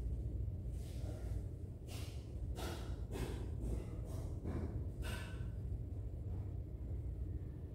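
Several short, noisy breaths or exhalations close to the microphone, clustered in the middle, over a steady low rumble.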